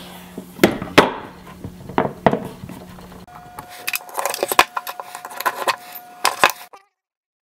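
Screwdriver and hands working on a hard drive's metal case: a few sharp clicks and knocks, then a quicker run of small metallic clicks and taps, some against the wooden table. It cuts off to dead silence about seven seconds in.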